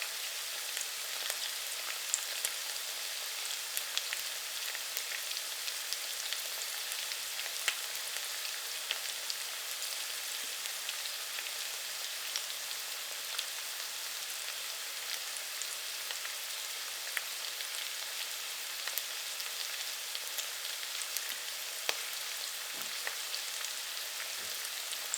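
Food frying in hot oil: a steady sizzling hiss with frequent small pops and crackles of spattering oil.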